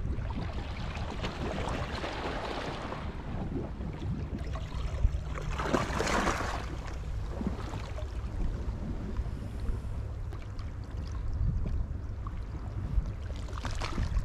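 Wind rumbling on the microphone, with sea waves washing in a few times; the loudest wash comes about six seconds in.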